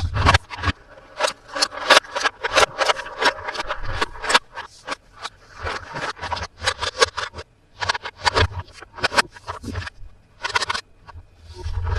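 Hands unboxing a toy set: an irregular run of sharp clicks, taps and scrapes from cardboard and plastic packaging and toy pieces being handled.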